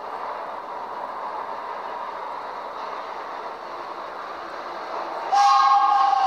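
Vintage BMT D-Type subway train rumbling as it approaches through the tunnel; about five seconds in, its horn sounds loudly as a steady chord of several tones.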